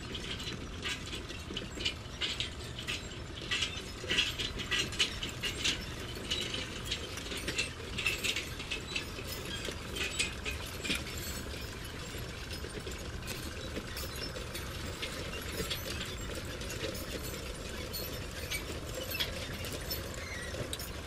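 Radio-controlled model bulldozer driving on its plastic tracks: rapid, irregular clicking and ticking of track links and gears, busiest in the first half.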